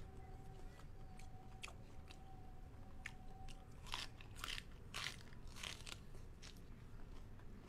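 Biting into and chewing a mouthful wrapped in a crisp lettuce leaf, with a run of five or six loud crunches about four seconds in. A few soft mouth clicks come before.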